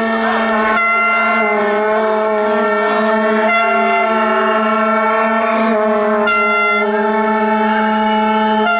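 Several horns blown together in long, unbroken notes, typical of demonstrators' horns. One low note holds steady throughout while higher notes change pitch every few seconds.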